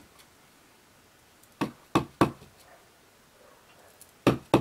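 Wood-mounted rubber stamp tapped down repeatedly onto a Basic Black ink pad to ink it: three short knocks about a second and a half in, then another quick run of taps near the end.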